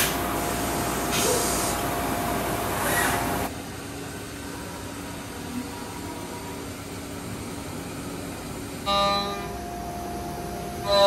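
Haas CNC vertical mill machining: the spindle cutting with a steady tone over loud machining noise, then after a cut a quieter run of the mill with coolant spraying inside the enclosure. About nine seconds in, a held horn-like tone sounds for about a second.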